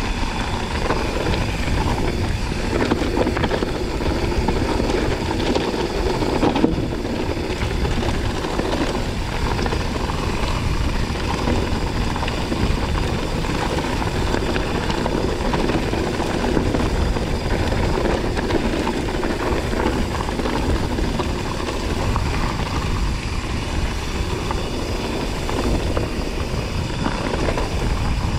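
Wind buffeting the action camera's microphone as a low, steady rumble, mixed with a mountain bike's tyres rolling and crunching over a loose gravel and stone track.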